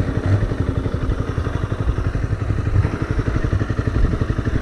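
Honda CBR motorcycle's single-cylinder engine running steadily on the move, a rapid even train of exhaust pulses.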